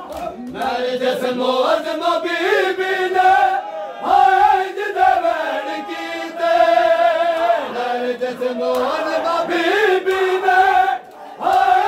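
Men's voices chanting a noha, a Shia lament, together in long held phrases, with short breaks between the lines.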